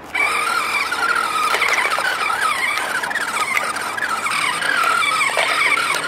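Electronic engine sound effect from a talking toy truck's small speaker: a wavering, squealing tone that starts abruptly and keeps going.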